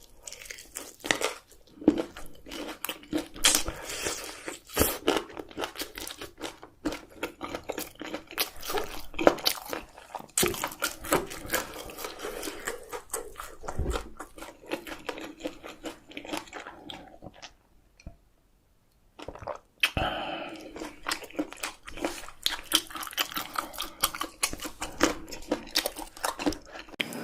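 Close-miked chewing and crunching of chicken with melted cheese sauce, dense wet crackles and bites, pausing briefly about two-thirds of the way through before resuming.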